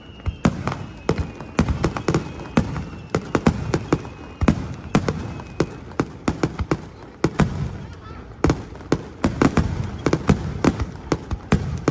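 Fireworks display: a rapid barrage of firework bursts, several sharp bangs a second. A faint high whistle slowly falls in pitch through the first half.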